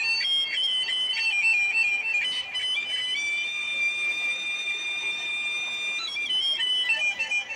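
Background music: a high, reedy melody moving note by note, with one long held note about three seconds in.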